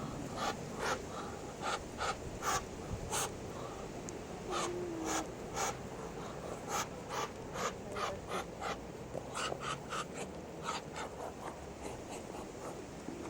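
Muscovy duck giving a string of short, breathy hissing huffs, irregular at about one or two a second, with a brief low chirp about five seconds in.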